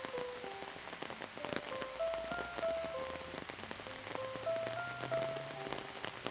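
Steady rain falling, with many close drops tapping, laid over soft ambient music of slow, sustained notes.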